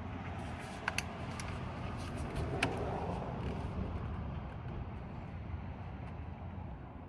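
Plastic door-trim clips being pushed into place by hand, with a few sharp clicks and some scraping, over a steady low background rumble.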